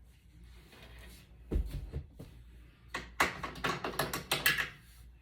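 Handling noise: a dull thump, then a quick run of sharp plastic clicks and rattles as an orange shipping knob is unscrewed and pulled out of the side of a Glowforge laser cutter.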